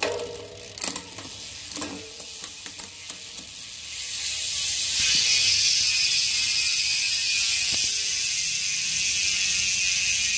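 Bicycle drivetrain in a repair stand: a few sharp clicks of the chain and derailleur in the first seconds, then, from about four seconds in, the Industry Nine Torch high-engagement rear hub's freewheel buzzing steadily and high-pitched as the rear wheel coasts.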